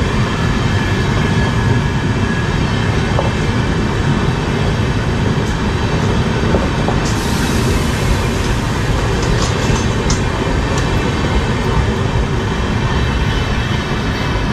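Tejas Rajdhani Express passenger coaches running past: a steady, loud rumble and rattle of wheels on the rails. A brighter hiss comes in about seven seconds in, with a few brief high squeaks a couple of seconds later.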